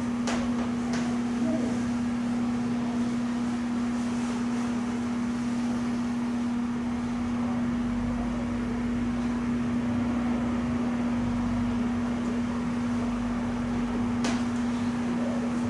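A steady machine hum over a background hiss, with a few faint clicks near the start and near the end.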